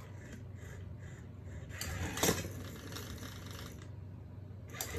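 A small motorized cat toy rattling across a hardwood floor as a kitten chases it, with a sharp knock about two seconds in.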